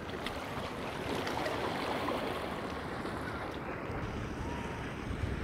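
Wind blowing across the microphone over a steady rush of seaside background, with low buffeting growing near the end.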